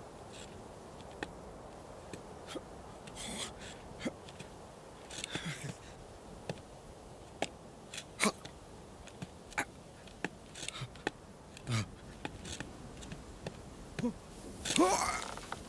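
Scattered sharp taps and scrapes of a sheep's hooves shifting on a rock over a faint steady outdoor ambience, with a few short soft rustles and a louder rush of noise near the end.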